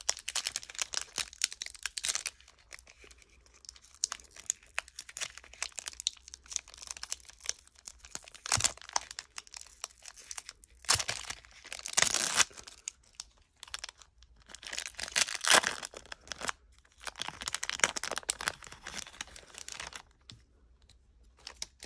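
Foil wrapper of a 1995-96 Topps Stadium Club card pack being torn open and crinkled, in several separate bursts of tearing and crackling.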